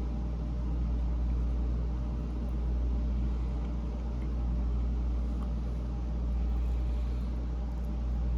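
A steady low hum with a faint hiss above it, swelling and easing slightly every second or two.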